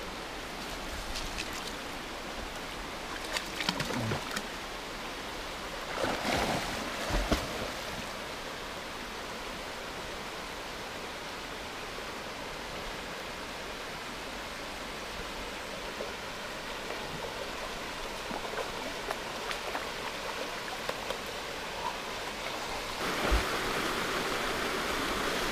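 Shallow mountain creek running over rocks with a steady rush, and a few brief louder sounds about four and six to seven seconds in. The rush gets a little louder near the end.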